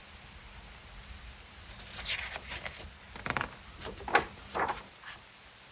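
Crickets chirping steadily as a night-time ambience sound effect, with a few faint short sounds about halfway through.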